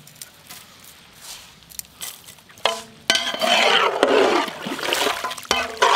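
A wide flat ladle stirring a large batch of mutton masala in a big metal cooking pot. It is quieter at first, then from about halfway the ladle scrapes loudly and roughly against the pot, with two short ringing tones.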